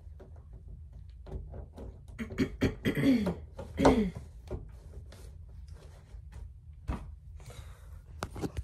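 A fabric cat bed being handled and settled onto a window sill: rustling and small knocks throughout, with a few short wordless vocal sounds from the person about three seconds in.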